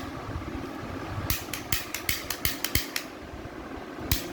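Packaging being handled during an unboxing: a quick run of about eight short rustles and crinkles between about one and three seconds in, over the steady hum of a fan.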